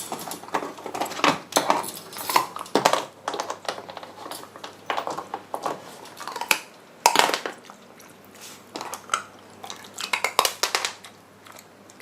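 Shiba Inu puppy crunching ice cubes between its teeth: irregular runs of sharp cracks and crunches with short pauses between bites.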